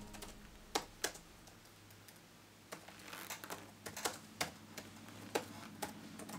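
Laptop keyboard being typed on: scattered key clicks in short irregular runs, with pauses between them.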